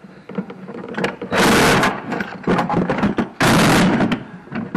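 A power tool is run in two short bursts, about a second and a half in and again near three and a half seconds, with knocks and clanks of metal parts between them.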